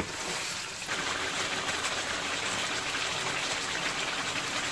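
Chicken frying on high flame in oil and a yogurt gravy, sizzling and bubbling steadily as the yogurt's water cooks off.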